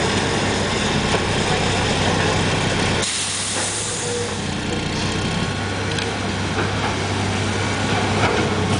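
Heavy diesel demolition machinery running steadily, with a loud hiss about three seconds in that lasts a second or so.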